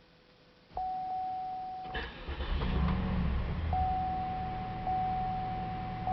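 2003 Oldsmobile Aurora with its ignition switched on and a steady whine coming up, typical of the fuel pump running. About two seconds in, the starter clicks in and the engine cranks, catches and keeps running with a low hum under the whine. The car has a no-start fault and keeps dying.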